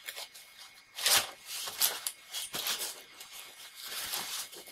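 Packing tape being sliced and torn along the seam of a styrofoam shipping box, with the foam lid scraping and rubbing. The strokes are irregular, with the loudest about a second in.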